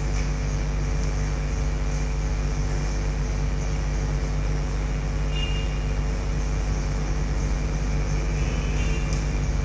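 A steady low hum with hiss underneath, unchanging throughout, with two faint short high tones about halfway through and near the end.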